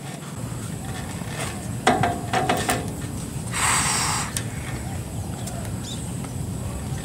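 Steady outdoor background noise with a few light knocks about two seconds in, and one short breathy hiss a little past the middle.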